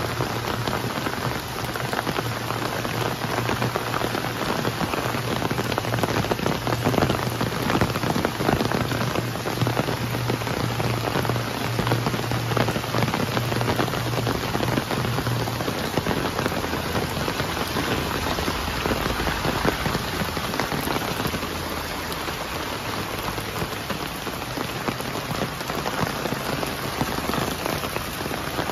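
Steady rain, a dense hiss made up of countless close drop ticks. A low steady hum runs beneath it for roughly the first half and then fades.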